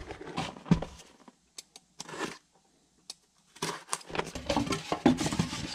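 Cardboard packaging being handled: a few knocks and taps as a box is set down, then, from about three and a half seconds in, a snap-off box cutter scraping and slitting the tape on a cardboard box.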